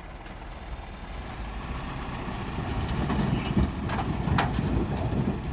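A heavy vehicle's engine running, its rumble growing louder, with a few sharp knocks about four seconds in.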